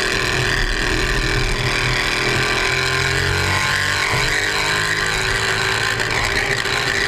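Car engine pulling hard under acceleration, with steady wind and road noise as the car speeds along a snowy track.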